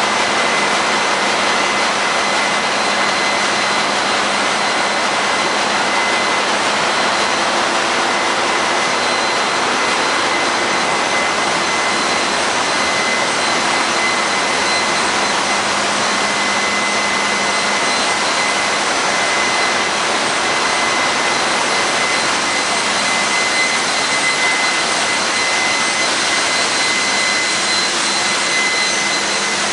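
Loud, steady noise of a tanker's engine-room machinery running, with a thin, constant high whine in it.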